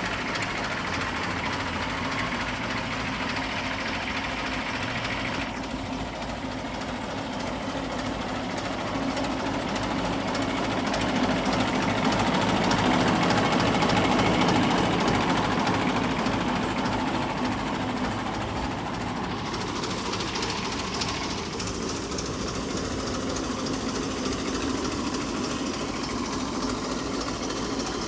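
Old Hanomag tractor's diesel engine running with a steady knocking clatter, louder in the middle as the open engine bay comes close.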